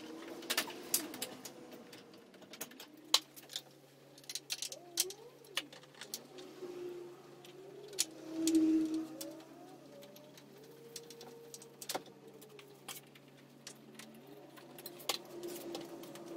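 Scattered clicks and knocks of plastic and metal parts being handled while a van's radiator pack is refitted, over a low steady hum. Faint wavering tones sound in the background, the loudest briefly about halfway through.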